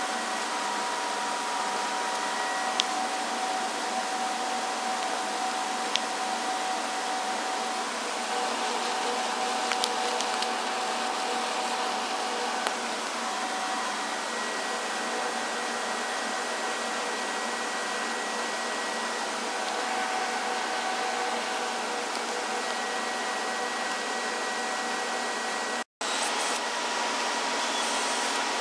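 Hand-held gas torch burning with a steady hissing rush, broken by a few sharp clicks.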